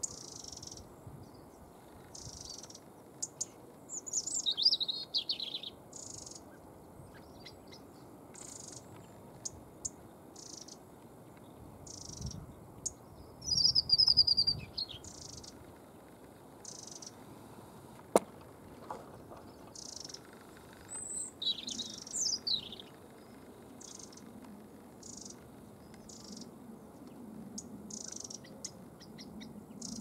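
European robin singing its thin, wavering autumn song in three separate phrases several seconds apart. Between the phrases a faint, short high chirp repeats every second or so.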